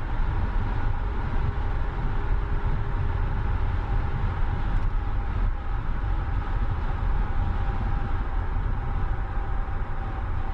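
BMW E91 325i cruising at motorway speed: a steady rumble of road and wind noise with a constant drone from the straight-six engine.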